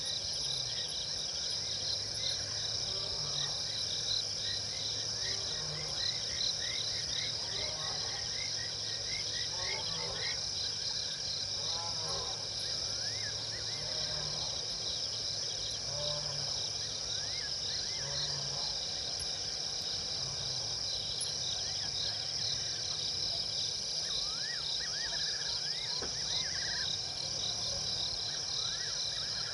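Steady, high-pitched chorus of crickets and other insects at night in the African bush, with scattered short rising chirps from other small animals.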